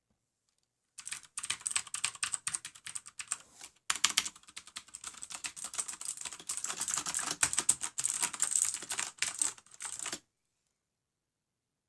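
Fast typing on a Hansung MCF7 mechanical keyboard with clicky Cherry MX Blue switches: a dense run of sharp key clicks. It starts about a second in, pauses briefly near four seconds, and stops abruptly about two seconds before the end.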